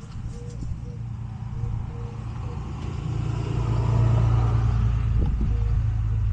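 Car engine running with a steady low hum that grows louder around the middle.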